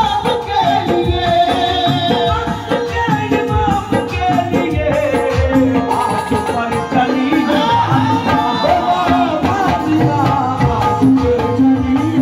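Qawwali music: a man sings into a microphone over harmonium and hand-drum accompaniment, with a steady run of drum strokes.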